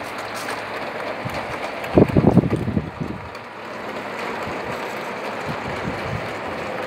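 O gauge model freight wagons rolling along the track, a steady rumbling clatter of wheels on rail. There is a louder rough burst about two seconds in.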